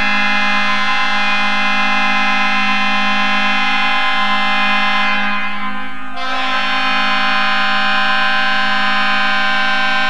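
Fort Wayne Komets arena goal horn blowing one long continuous blast, a steady chord of several held tones, dipping briefly about six seconds in.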